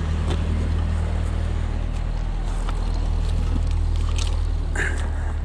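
A steady low engine drone, with a few faint light clinks over it.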